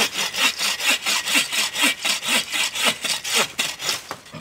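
Hand saw cutting through a wooden branch in steady back-and-forth strokes, about two and a half strokes a second.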